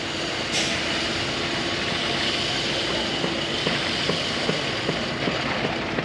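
Concrete boom pump truck running steadily under load while pumping concrete through its boom and hose, a constant engine-and-pump hum with a few scattered short knocks.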